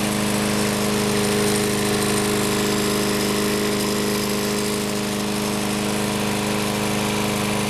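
Troy-Bilt XP walk-behind lawn mower's OHV Briggs & Stratton engine running steadily at a constant speed.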